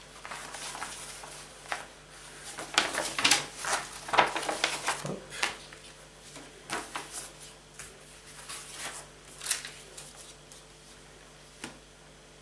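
A large folded paper poster being handled and folded up by hand: irregular paper rustling and crinkling, busiest in the first half, with a few short dry taps.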